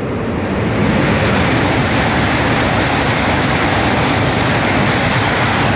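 E5-series Hayabusa Shinkansen coupled to an E6-series Komachi passing through the station at high speed without stopping: a loud, steady rush of air and wheel noise that swells over the first second and then holds level.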